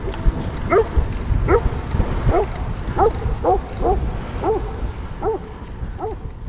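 A dog barking repeatedly, about nine barks at a steady pace, growing fainter toward the end, over low wind and road rumble.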